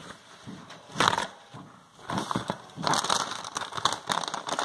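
Close crunching and crinkling noises, one burst about a second in, then denser and louder crackling from about two seconds on.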